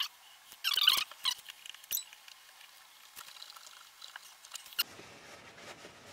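Fret eraser rubbed across the frets of a Fender Telecaster: short scratchy, squeaky strokes, the loudest about a second in, then light clicks and taps, as grime is scrubbed off the frets.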